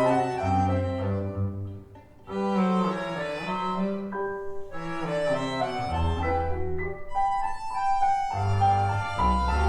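Tango music with bowed strings, double bass and piano, played at low volume through Elac Debut 6.2 bookshelf speakers and recorded in the room, so it carries noticeable room echo. There is a brief break in the playing about two seconds in.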